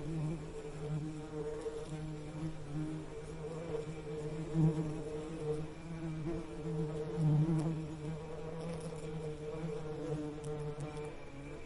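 Bee buzzing: a steady low hum with overtones, its loudness wavering and swelling briefly twice, near the middle and about two-thirds of the way through.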